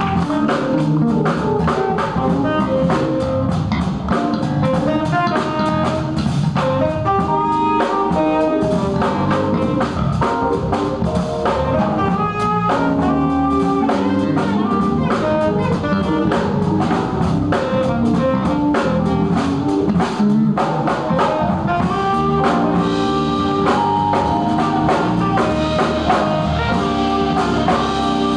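A small jazz band playing live: drum kit, electric guitar, keyboard and saxophone.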